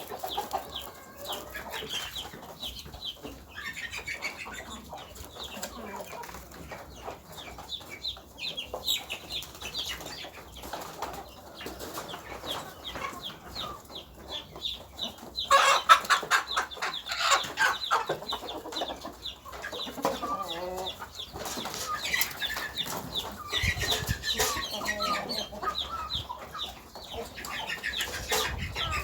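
Chickens clucking steadily, with the loudest burst of calls about halfway through.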